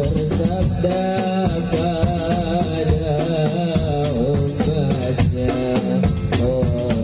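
A man's voice singing an Arabic devotional song (sholawat) in a wavering, ornamented line through a microphone, over hand-struck frame drums (rebana) and a large bass drum played in a steady rhythm.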